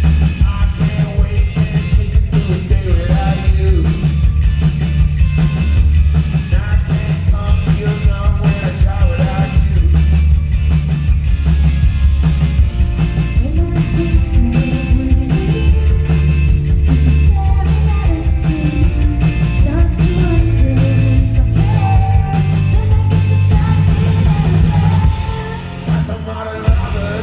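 Rock band playing a song live, loud, with singing over a heavy low end. The music drops back briefly near the end.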